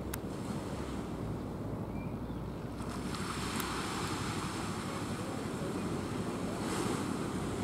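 Low puttering of a small fishing boat's engine across open water, under wind on the microphone and the wash of the sea; the wind hiss swells through the middle and eases near the end.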